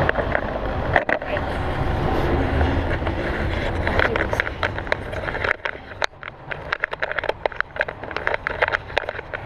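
Snow shovel blade pushed along the ground through snow, a continuous scrape. About halfway through it turns quieter, breaking into crunching and ticking.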